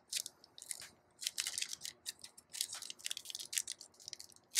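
Trading-card pack and cards being handled: a faint run of quick, irregular crinkles and rustles.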